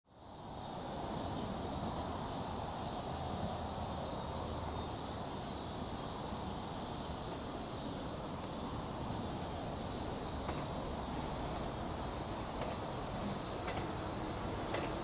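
Insects chirring in on-and-off spells over a steady low rumble, with a few faint clicks near the end. The rumble and clicks come from a 115-series electric train approaching in the distance.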